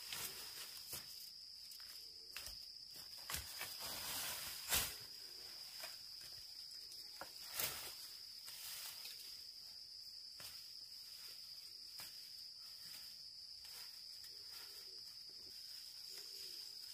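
Steady high-pitched insect drone, such as crickets, with scattered clicks and knocks; the loudest knocks come about five and seven and a half seconds in.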